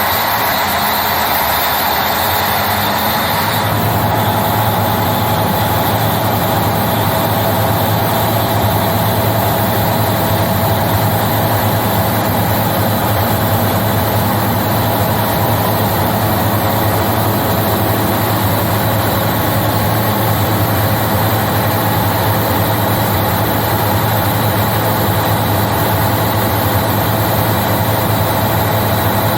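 Marine emergency diesel generator's engine coming up from its start. About three and a half seconds in, it settles into steady running with an even low hum.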